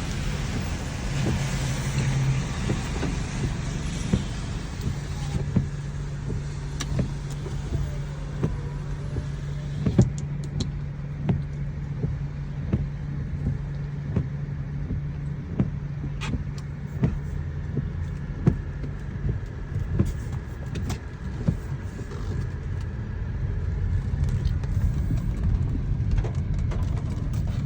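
Truck engine idling with a steady low hum. Rain taps irregularly and often, in sharp little clicks.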